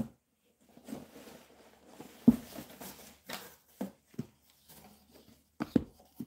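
Hardcover books being handled in a cardboard box: rustling and scraping as they are lifted out, with a sharp knock about two seconds in and a few lighter knocks near the end as the books bump together.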